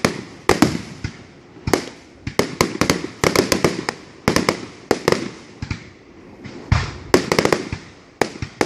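Aerial firework shells bursting in a continuous barrage: clusters of sharp bangs and cracks, several a second, with a few deeper booms among them.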